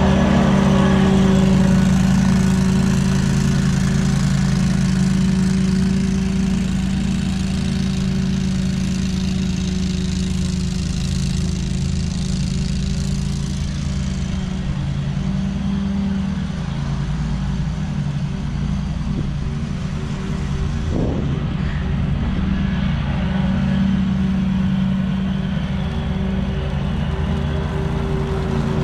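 Walker riding mower running steadily, its engine and cutting deck working through grass and fallen leaves.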